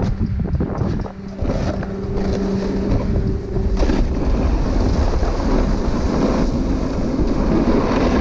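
Wind rushing over the microphone of a point-of-view camera as a snowboard rides down a groomed slope, the board scraping over the snow.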